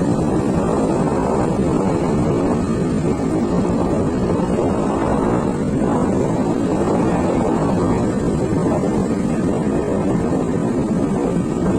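Steady rush of wind on the microphone with the running noise of a motor scooter underneath, as heard while riding; it holds level and unbroken throughout.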